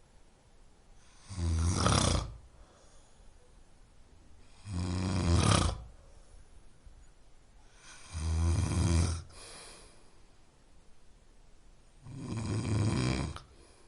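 Snoring: four snores about three and a half seconds apart, each lasting about a second, with quiet breathing gaps between.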